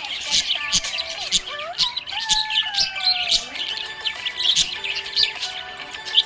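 Budgerigars chirping in a rapid, continuous chatter of short high chirps, over background music with steady held notes.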